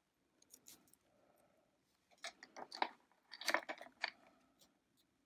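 Hands handling small jewellery-making tools and beads on a work board: two short clusters of small clicks and rattles about a second apart.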